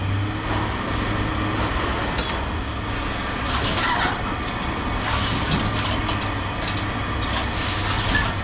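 An engine running steadily with a low hum, with scattered short clinks and rattles of scrap metal being handled.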